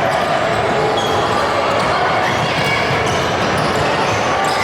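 Youth basketball game in a gym: the ball bouncing on the hardwood amid a steady din of players' and spectators' voices.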